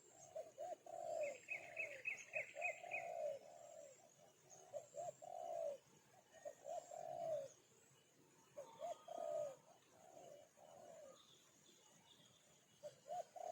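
A bird calling in phrases of short, low cooing notes, with a quick run of about seven higher chirps a second or so in.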